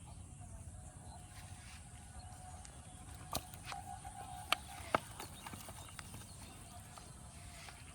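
Three or four sharp knocks about midway, over a low steady rumble and a faint thin tone.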